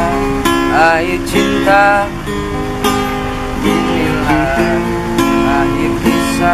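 Acoustic guitar playing a song's instrumental intro: strummed chords, with a melody line that slides in pitch above them.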